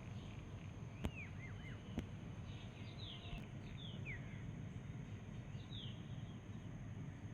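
Birds calling: a series of short, falling chirps, with two sharp clicks about one and two seconds in, over a low steady background rumble.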